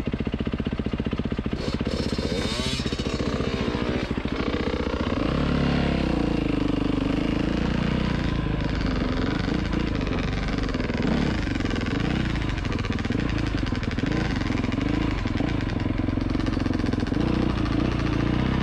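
Dirt bike engine idling steadily, then opening up about five seconds in and running under throttle, its pitch rising and falling as the bike rides along.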